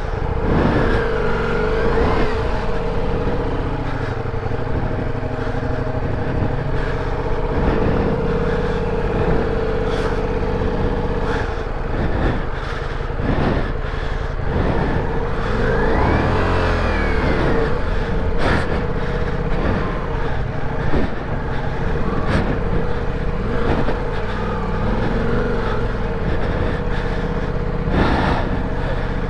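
Ducati Multistrada V4 Rally's V4 engine held at steady revs while the rear tyre spins in slick clay mud, the bike stuck and being worked free. The pitch briefly rises and falls about halfway through.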